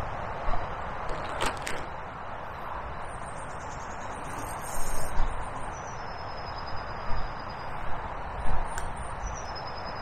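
Steady outdoor background hiss by a small river, with a bird singing thin, high, drawn-out notes in the second half. A few soft bumps and clicks, from handling or clothing near the microphone, break in now and then.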